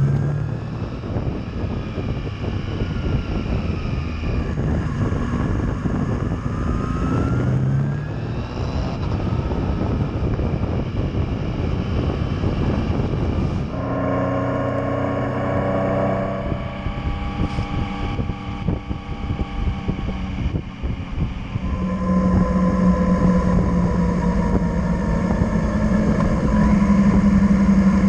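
Yamaha Tracer motorcycle engine running under way, with wind noise. The engine note rises and falls with the throttle and gear changes, holds steady through the middle, then runs louder and steadier near the end.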